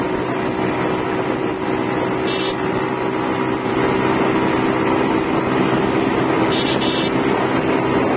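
Bajaj Pulsar's single-cylinder engine running hard at high revs, near 9,000 rpm, at nearly 100 km/h, with wind rushing past. The engine note stays steady and climbs only slowly.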